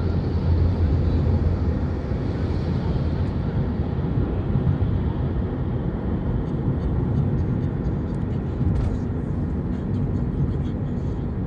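Steady low road and engine rumble of a car driving at speed, heard from inside the cabin.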